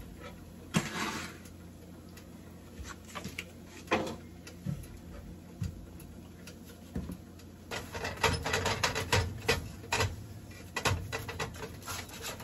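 Butter in a frying pan crackling and popping irregularly under a quesadilla as the pan sits off the heat, with the pops coming thick and fast about eight seconds in.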